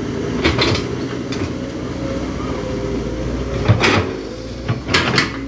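Tracked excavator's diesel engine running steadily while it digs, with a few sharp knocks and clatters: one about half a second in, and a louder cluster near the end.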